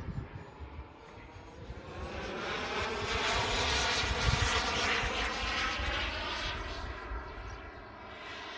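Single JetsMunt 250 model turbine of a large RC F-22 Raptor jet flying past. Its whine swells to its loudest around the middle of the pass and then fades as it draws away.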